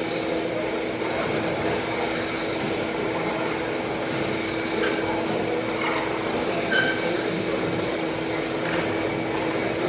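Woodshop machine running steadily: a continuous mechanical noise with a constant hum.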